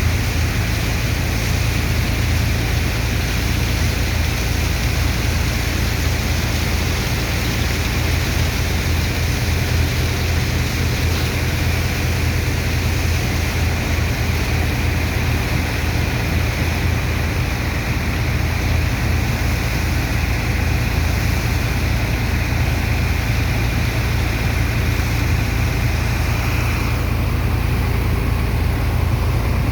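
Sand dredger's engines and water pump running steadily: a loud, constant low drone under a rushing hiss, which thins a little near the end.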